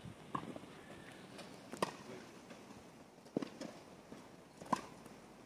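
Tennis rally: a ball struck back and forth with rackets, four sharp hits about a second and a half apart.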